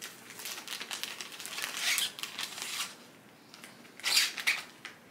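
Clear plastic bag crinkling and rustling as it is worked around a plant's stem and moss pole: a run of crackles over the first three seconds, then a louder crinkle about four seconds in.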